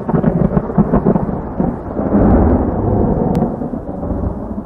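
Thunder sound effect: a crackling lightning strike, then a deep rolling rumble that is loudest about two seconds in and slowly fades.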